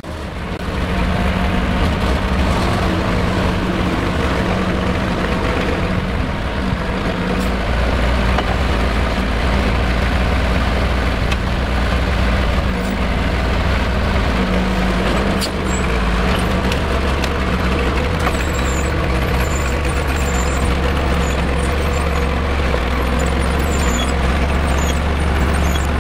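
Small crawler tractor's engine running steadily as it works to shift a building.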